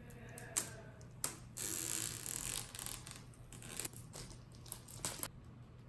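Protective plastic film being peeled off PC parts, crackling and tearing, with a few sharp clicks and one longer peel about one and a half seconds in.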